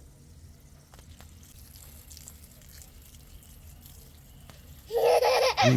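Faint dripping and trickling water with a few light clicks, then about five seconds in a toddler's loud, high-pitched vocalizing.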